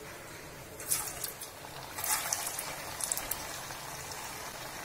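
Potato vadas slid one at a time into hot coconut oil in a steel pot. Each drop sets off a burst of sizzling, about three times a second or so apart, and these settle into the steady sizzle of deep-frying.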